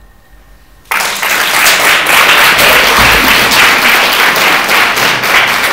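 Audience applauding: dense hand clapping that breaks out suddenly about a second in and keeps on steadily.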